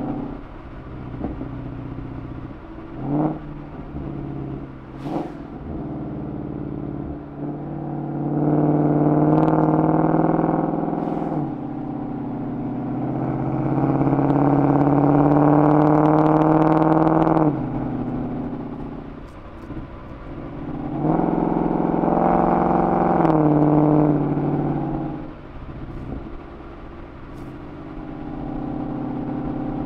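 Ford Mustang GT V8 through a Corsa Sport cat-back exhaust, pulling hard three times, the note rising through each pull and falling away suddenly as the throttle lifts, with lighter cruising between. A couple of short blips sound a few seconds in.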